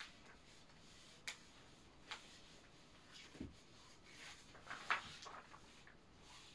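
Faint, scattered clicks and knocks over quiet room tone. A few come singly, one of them a dull lower thud, and then a denser run of clicks and light scraping follows about three-quarters of the way through, where it is loudest.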